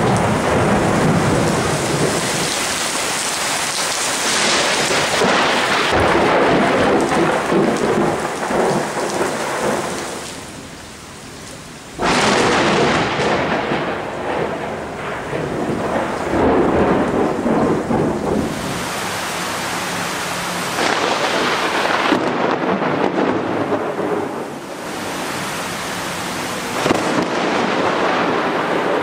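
Thunderstorm with heavy rain and rolling thunder. About twelve seconds in, after a brief lull, a sudden sharp crack of close thunder breaks in and rumbles on, with more rumbles following.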